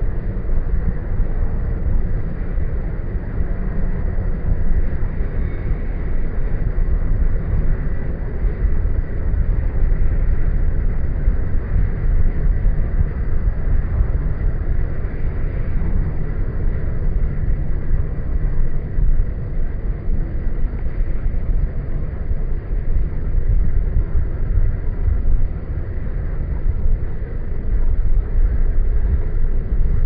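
A Jeep Wrangler JK driving, its engine, tyre and road noise a loud, steady low rumble, picked up by a microphone mounted outside on the hood in the wind.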